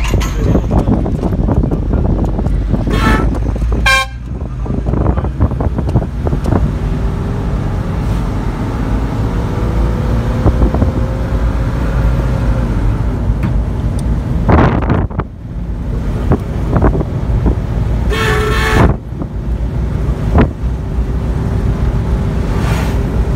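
Steady engine and road rumble heard from inside a moving vehicle, with short vehicle-horn toots a few times, the longest about three-quarters of the way through.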